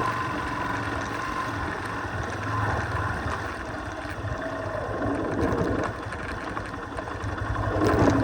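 A vehicle engine running steadily with a noisy, even drone, rising a little in level near the end.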